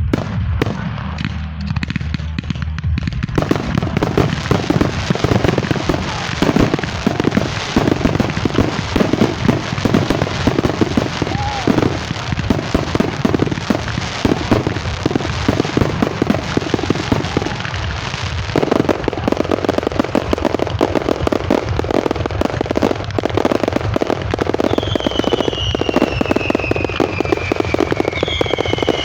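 Fireworks going off in a dense, rapid crackle of bangs that thickens a few seconds in, with two falling whistles near the end.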